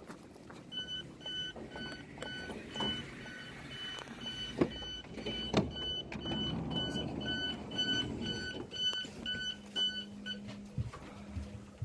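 Evenly repeated electronic warning beeps from an ICE train door, about two a second at one steady pitch, stopping shortly before the end. A few knocks and steps come as someone boards, and a low steady hum starts near the end.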